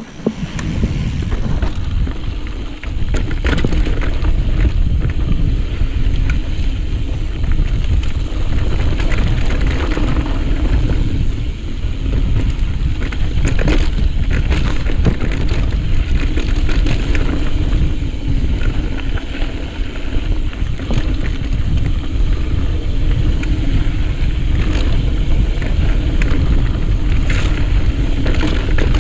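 Wind rushing over the camera microphone, with the rattling and knocking of a mountain bike riding fast over a rocky trail.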